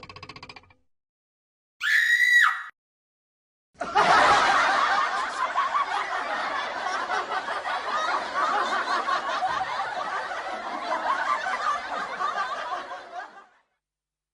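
Canned audience laughter sound effect: a crowd laughing for about ten seconds, then cutting off suddenly. Before it comes a brief pitched effect that rises and falls in under a second.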